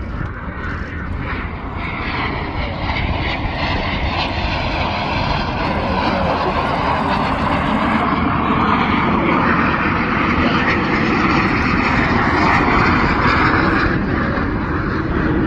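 Jet engines of a formation of Canadair CT-114 Tutor jets, each powered by a single J85 turbojet, roaring as the formation passes. The roar grows steadily louder, peaks a couple of seconds before the end, then eases slightly.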